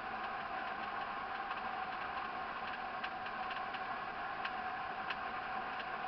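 Steady whirring drone heard inside a car cruising on a highway, with a constant mid-pitched hum and faint scattered ticks.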